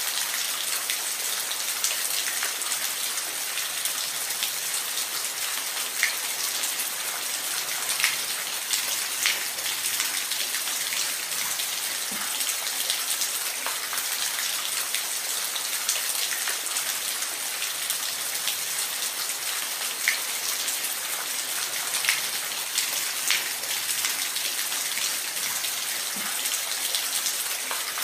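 Steady rain falling, an even hiss with scattered sharper drop hits standing out every second or two.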